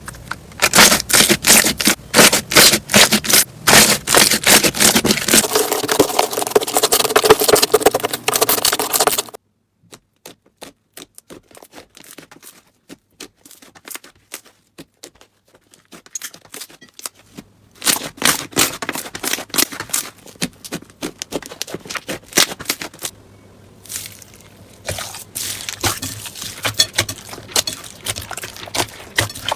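Slime being pressed and squished by hand, giving dense crackling and popping clicks. The crackling is loud at first, drops to sparse faint clicks after about nine seconds, then picks up again a little after halfway.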